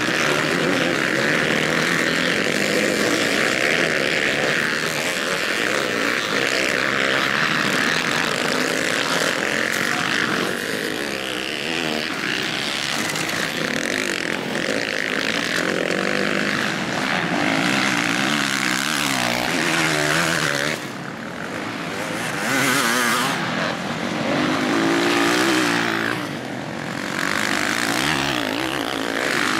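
Several motocross bikes racing on a dirt track, their engines revving hard and rising and falling in pitch through the corners. The engine noise dips briefly twice, about two-thirds of the way through and again near the end.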